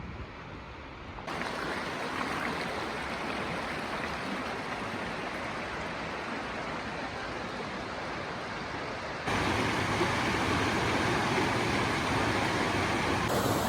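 Svartifoss waterfall rushing, a steady noise that sets in about a second in and steps abruptly louder about nine seconds in.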